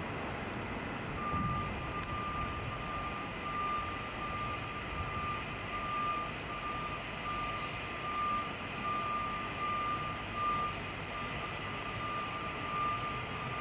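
A vehicle's backup alarm beeping over and over at one high pitch, starting about a second in, over steady city street traffic noise.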